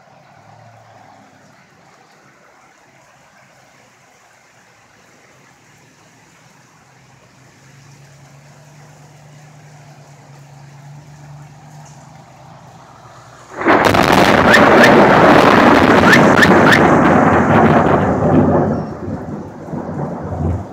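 Steady rain, then about 13 seconds in a sudden, very loud thunderclap from a close lightning strike, crackling for about five seconds before it rolls away.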